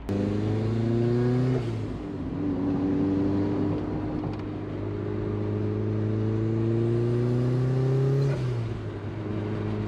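Turbocharged 1999 Mazda Miata's 1.8-litre four-cylinder, heard from inside the cabin while accelerating on a 3.6 final drive. The engine pitch climbs for about a second and a half, falls sharply, then climbs slowly for about six seconds before falling again near the end.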